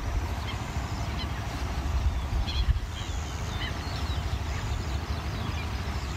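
Many birds calling in scattered short chirps and quick falling notes, over a steady low rumble.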